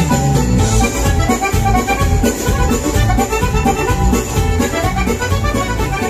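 Accordion playing dance music.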